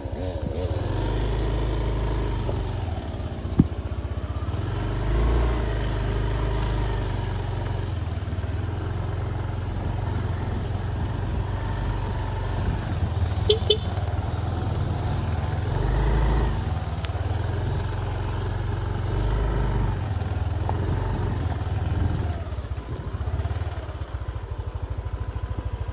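A motor vehicle's engine running steadily with a continuous low rumble, swelling and easing now and then. There is a sharp click a few seconds in and a brief chirp about halfway through.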